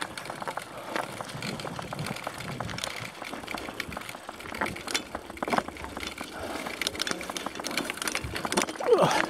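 Bicycle rolling over a rough dirt trail: tyres crunching on grit and the bike's frame and parts rattling with many small knocks over the bumps. Near the end comes a brief, louder gliding squeal.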